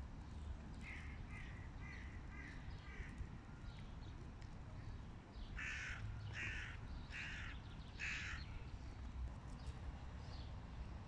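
Hooded crow calling: a run of about five softer, short calls about a second in, then four loud, harsh caws evenly spaced under a second apart around the middle.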